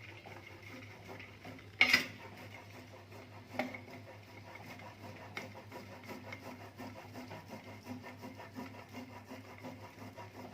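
Soft paneer being grated by hand on a metal grater: steady, evenly repeated rasping strokes. A sharp knock about two seconds in and a smaller one shortly after.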